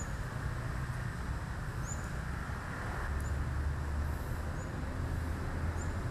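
Steady rumble of city traffic, with about five short, high bird chirps spread through it.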